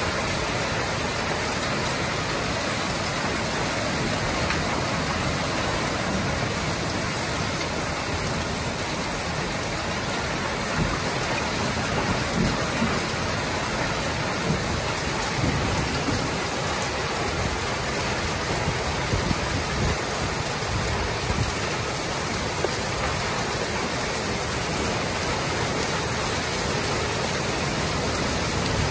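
Heavy rain pouring down onto a paved driveway, a parked car and nearby roofs. It is a dense, even hiss that holds steady throughout.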